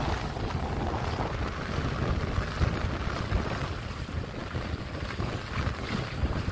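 Wind buffeting the microphone with a low rumble over small sea waves washing onto a sandy beach.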